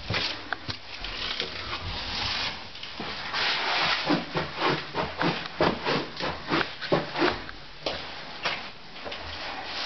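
Footsteps on a hard floor, a run of regular steps about three a second in the middle, with rustling and scattered clicks from the handheld camera.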